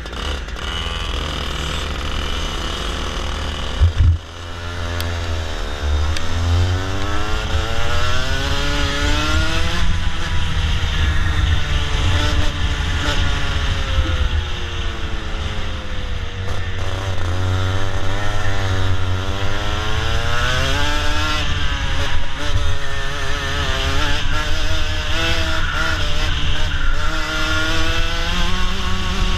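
Racing kart engine heard from on board, its pitch climbing repeatedly as it accelerates and dropping away between climbs, over a low rumble of wind and vibration. A single sharp knock comes about four seconds in.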